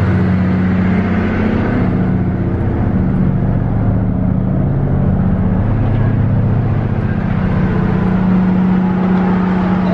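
Diesel locomotive engine idling with a steady, low hum.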